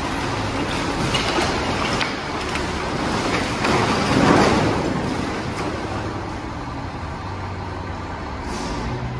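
Garbage truck dumping its load: loose trash slides and tumbles out of the tipped-up body into the pit, loudest about four seconds in. The truck's engine runs steadily underneath, and a short air hiss comes near the end.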